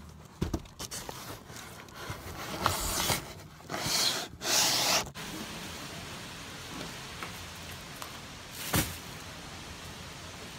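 Cardboard boxes being loaded into a car: a knock, then a few seconds of loud scraping and rubbing as they are shoved in. After that a steady background hiss, with one more brief scrape near the end.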